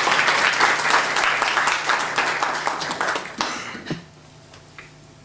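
Audience applauding, thinning out into a few last separate claps about four seconds in.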